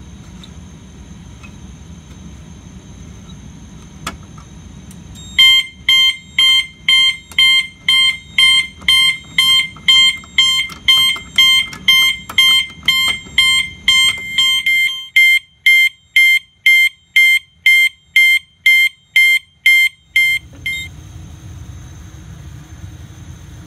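Siemens fire alarm horn sounding in march time: a steady, loud tone pulsing about twice a second for about fifteen seconds, then cutting off. A single click comes shortly before it starts.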